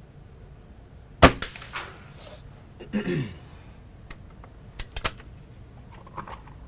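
A Walther LGU .22 spring-piston air rifle fires once about a second in, a sharp crack that rings briefly. Then comes the cocking of its underlever: a falling groan as the spring is compressed, followed by three sharp metallic clicks.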